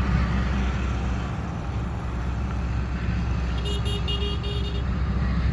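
Diesel engine of a Hyundai 210 excavator running steadily, with a quick run of about five short beeps a little past the middle.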